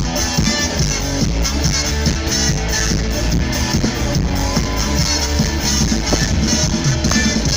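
Live band playing loud amplified music, an instrumental stretch without vocals, with heavy bass.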